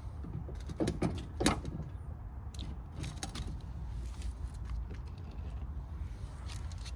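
Scattered knocks, clicks and creaks as a four-stroke lawn mower is handled and tipped over to drain its engine oil, the loudest knocks about one to one and a half seconds in, over a steady low rumble.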